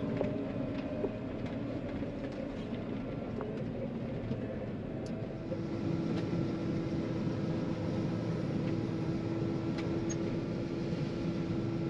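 Engine running steadily at a distance, with a steady hum that grows stronger about halfway through.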